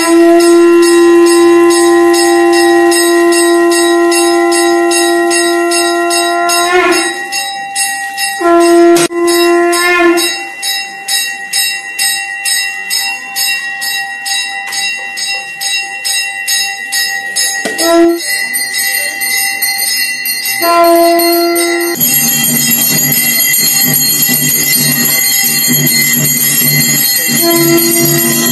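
Temple bells ringing rapidly and continuously for an arati lamp offering, over a long held note that stops and starts again several times. A deeper beat joins about 22 seconds in.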